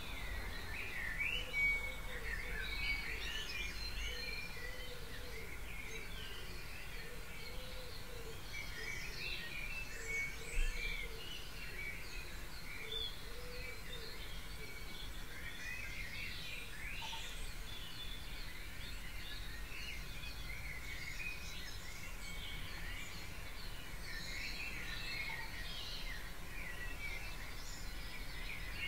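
Dawn chorus: many songbirds singing at once in quick, overlapping chirps and trills, over a steady low hum.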